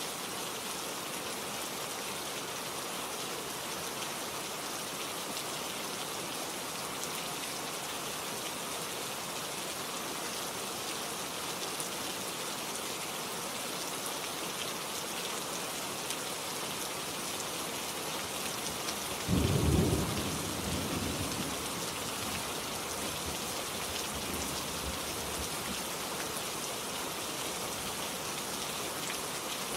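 Steady rain falling, with one sudden clap of thunder about two-thirds of the way through that rumbles low and dies away over two or three seconds.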